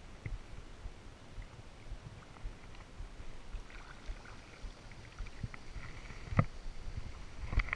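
Kayak paddling on calm water: paddle blades dipping and dripping. There is a sharp knock about six and a half seconds in and another near the end.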